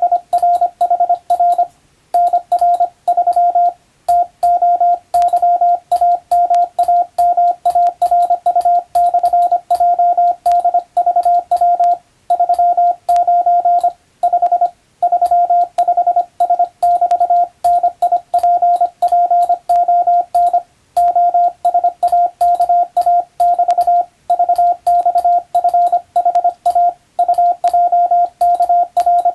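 Morse code (CW) practice signal: a single steady beep tone keyed on and off in fast dots and dashes, with short gaps between words. A faint click marks each start and stop of the tone.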